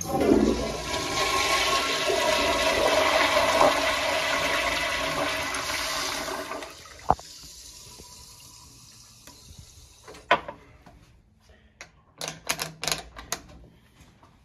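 A 1960s Crane Santon toilet flushed by its flushometer valve: a sudden loud rush of water that runs for about seven seconds, then cuts off sharply to a faint, fading wash. A few sharp clicks and knocks come near the end.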